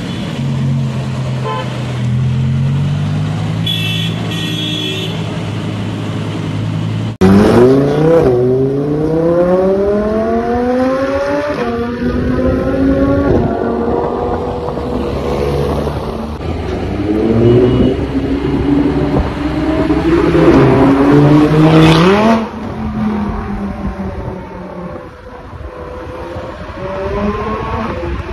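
A supercar engine: first a low, steady note at crawling speed, then after a sudden cut a hard acceleration through the gears. The pitch climbs and drops back at each upshift several times, eases off, then climbs again near the end.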